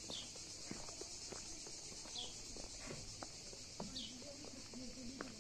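Footsteps walking outdoors over a steady high insect chorus, with a bird giving a short falling chirp about every two seconds.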